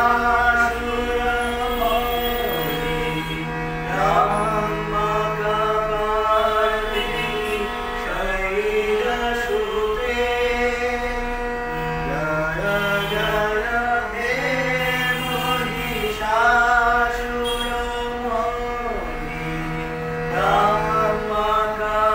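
A group of men and women singing together to a harmonium accompaniment. The harmonium holds steady sustained notes under the sung phrases.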